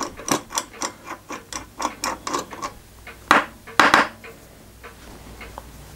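Light metallic clicking, about four clicks a second, as small 6BA nuts are worked loose from the frame posts of a model steam engine. Two louder knocks follow after about three seconds.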